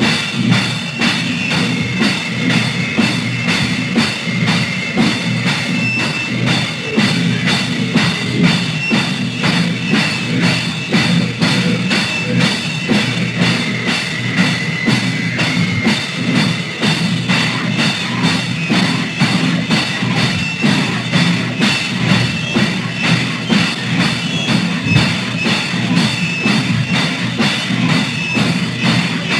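Hardcore punk band playing with fast, driving drumming on a drum kit under bass and guitar: a raw, rough lo-fi demo-tape recording.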